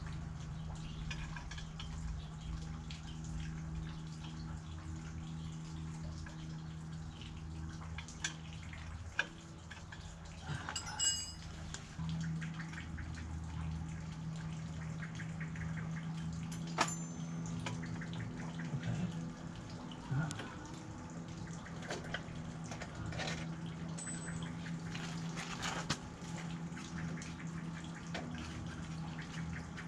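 Occasional light metallic clinks and taps of hand tools on the motorcycle's exhaust, a few of them ringing briefly, over a steady low hum.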